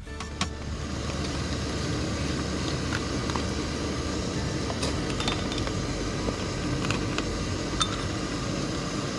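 Camp coffee-making gear being handled: a steady rushing noise with a few light clinks of metal and glass scattered through it.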